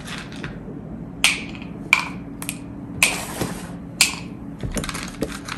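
Pieces of a Nina Ottosson dog puzzle toy being lifted off and slid by hand: a string of short, sharp clicks and taps, with one longer sliding scrape about three seconds in.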